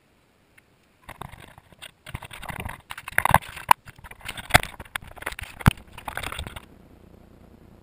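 Handling noise of a handheld camera being moved and positioned against a pickup's bed and tailgate: rustling and scraping with several sharp knocks, starting about a second in and stopping near the end, after which only a faint steady hiss remains.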